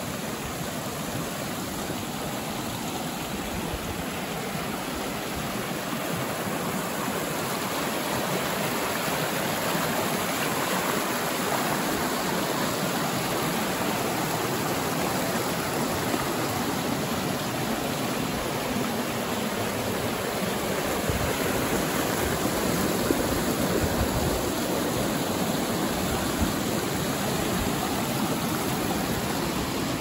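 A mountain river rushing steadily, growing a little louder over the first several seconds.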